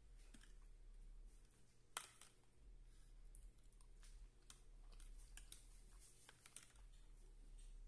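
Faint eating sounds: scattered soft clicks of a plastic fork against a clear plastic takeout container and of chewing, with one sharper click about two seconds in.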